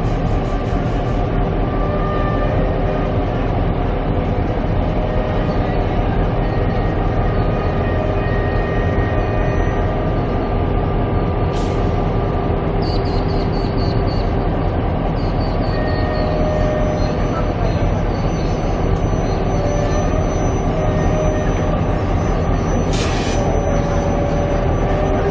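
Railway locomotives running steadily close by, a loud constant low drone with a few held tones over it. Two brief sharp clicks come through, about halfway and near the end.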